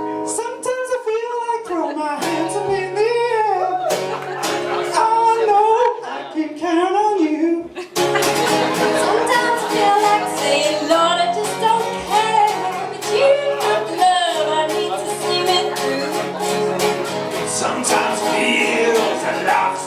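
Live band with singing, acoustic guitar and bass. It opens with sliding sung lines over a few held guitar and bass notes, then about eight seconds in the full band comes in with a steady beat under the vocals.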